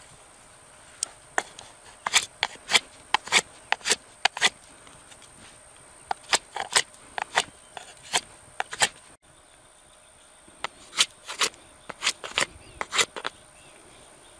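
Large fixed-blade knife shaving mesquite wood while carving a spatula: a run of quick, sharp scraping cuts in three bursts, with short pauses between.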